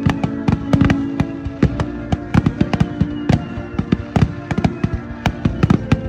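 A fireworks display with rapid, dense bangs and crackling, many sharp reports a second, over steady background music.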